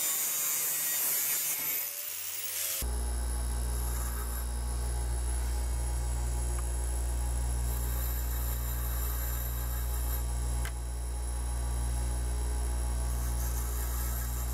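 Small angle grinder with a cutoff wheel cutting through the end of a stainless 10-32 bolt, a high-pitched grind. After about three seconds it gives way abruptly to a bench grinder running with a steady hum while the cut bolt ends are ground clean so the threads aren't burred.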